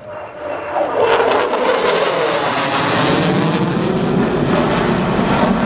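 Mitsubishi F-15J fighter's twin F100 turbofans passing close by: the jet noise swells over the first second into a loud, harsh rush with crackle, and a pitch falls as the aircraft moves away.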